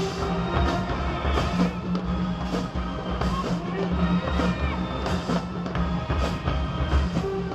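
Marching band playing: sustained brass over drums, with bright crashes falling on a steady beat about every two-thirds of a second.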